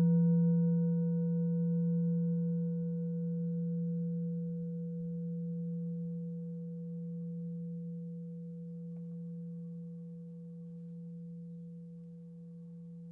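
Tibetan singing bowl, with a glass of water standing in it, ringing on after being struck: one steady low hum with fainter higher overtones, slowly dying away.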